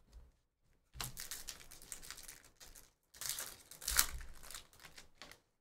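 Hockey card pack wrappers being torn open and crinkled by hand, in two stretches of crackling, with one sharp louder crackle about four seconds in.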